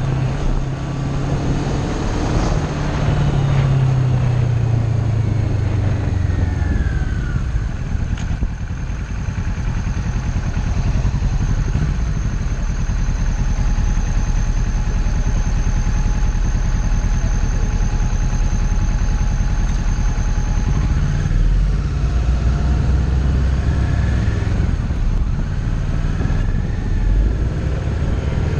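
Kawasaki Ninja 650's parallel-twin engine heard from the rider's seat in city traffic: the engine note falls as the bike slows in the first few seconds, runs low and steady through the middle, and rises again near the end as it pulls away. A faint steady high whine sounds for several seconds in the middle.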